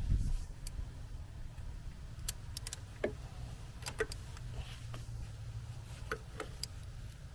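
Scattered light clicks and taps, irregular and a second or so apart, from small metal tools and parts being handled, over a low steady rumble.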